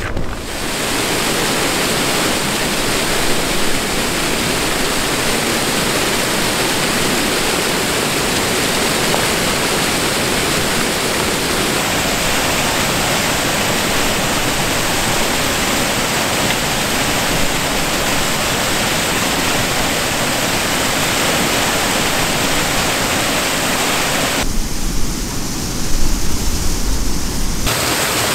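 Waterfall rushing steadily as water pours over rock ledges and plunges into a pool. Near the end, for about three seconds, the rush thins and a low rumble comes up underneath it.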